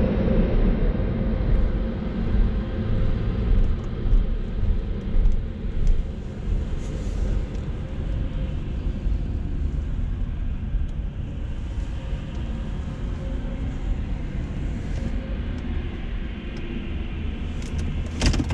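Car driving slowly, heard from inside the cabin: a steady low engine and tyre rumble, with a couple of sharp clicks near the end.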